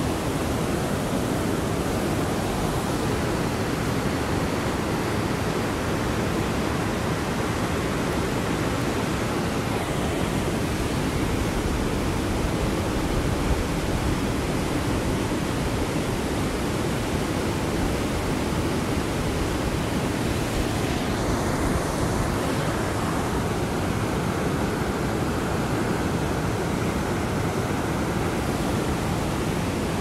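White-water rapids of a fast river rushing over rocks, making a steady, even sound like white noise.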